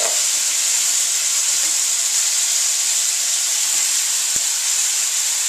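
Tinned whole tomatoes and their juice sizzling in a very hot oiled frying pan: a steady hiss, with a light tap about four seconds in.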